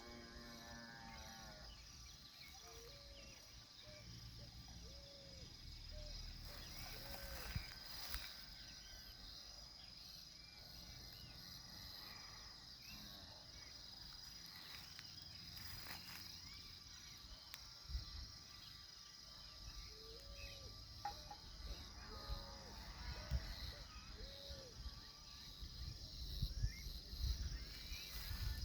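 Faint evening countryside ambience: a steady high insect trill throughout, with short rising-and-falling animal calls repeated in small groups around the start and again past the middle. A few soft knocks and low rumbles come near the end.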